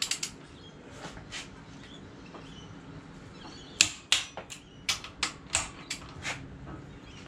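Click-type torque wrench clicking on the main bearing cap bolts of a 351 Cleveland as they are brought to their final torque of 95 foot-pounds. There are a few sharp clicks in the first second, then a quick run of clicks from about four to six seconds in.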